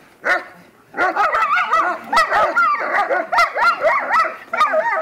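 German shepherds barking and yipping in rapid, overlapping volleys, worked up by a helper waving a rag at them in protection training. One bark comes just after the start, then from about a second in the barking runs on without a break.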